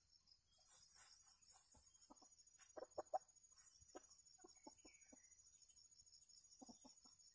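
Faint, soft clucking from a decoy rooster and wild red junglefowl foraging together: short clucks in small groups, the loudest about three seconds in. A faint steady high buzz runs underneath.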